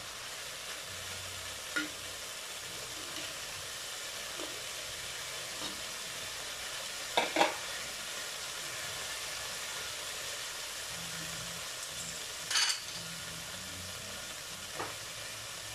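Oil and browned beef crust sizzling steadily in an aluminium wok, with a few sharp clicks of metal tongs on the metal, the loudest a close pair about halfway through.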